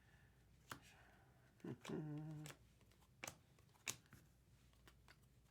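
Trading cards being handled while a pack is flipped through, giving a few faint, sparse clicks against near silence.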